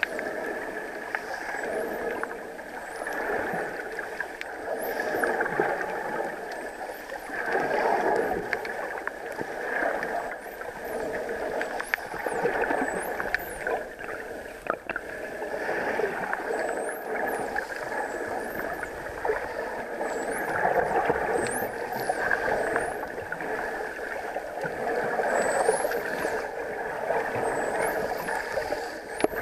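Muffled underwater noise with a dolphin's high whistles, each sweeping up and back down, recurring every second or two.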